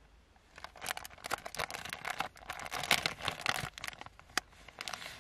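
Crinkling of the soft plastic packet of grease-cleaning wet wipes as it is handled and opened to draw out a wipe. A dense run of crackles lasts about three seconds, followed by a few scattered crackles near the end.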